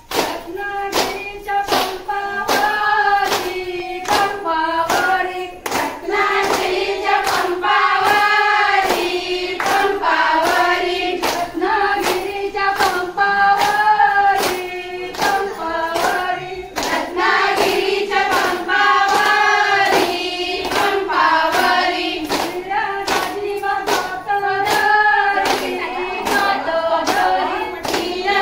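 A group of women singing a Marathi fugdi folk song together, with steady rhythmic hand-clapping at about two claps a second.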